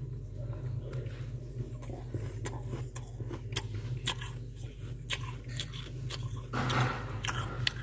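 Freezer frost crunching in scattered crisp crackles, with a denser crunch about seven seconds in, over a steady low hum.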